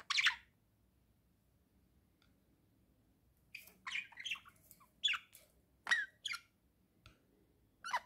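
Budgerigars giving short, sharp squawks and chirps: one call at the start, a quick run of about six calls in the middle, and one more near the end.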